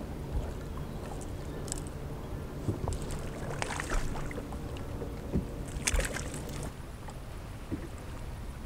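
A hooked largemouth bass splashing at the surface as it is fought to the boat and landed, in two bursts about three and a half and six seconds in, over a steady low hum from the boat.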